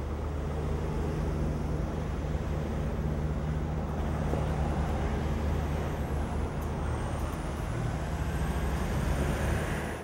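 Motor vehicle engine running steadily, a low rumble that cuts off suddenly at the end.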